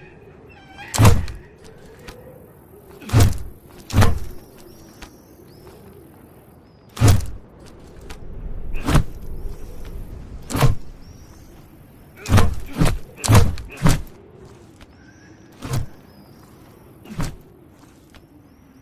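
Sledgehammer blows: about a dozen heavy, deep thuds at irregular intervals, with a quick run of four strikes a little past the middle.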